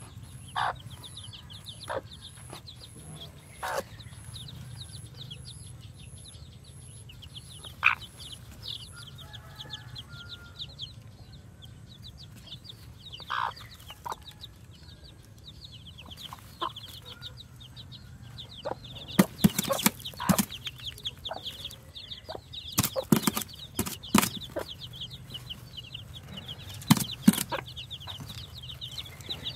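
Newly hatched chicks peeping constantly in rapid high cheeps, with a few short louder calls in the first half. Over the second half come clusters of sharp taps, the loudest sounds, from the mother hen pecking grain out of a hand.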